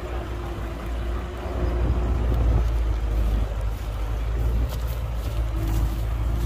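Heavy diesel earthmoving machinery running steadily with a deep, low drone, with a few faint light clicks and rattles in the second half.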